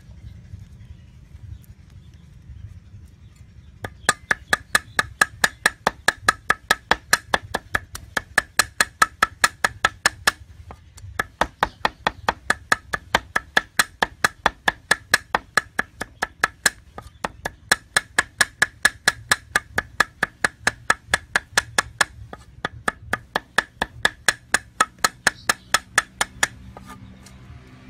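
Cleaver chopping garlic on a round wooden chopping block: a long run of rapid, even knocks, about four a second. It starts about four seconds in and breaks off briefly twice.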